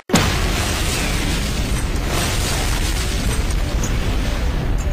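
Explosion sound effect: a sudden loud blast, then a long, steady, deep rumble.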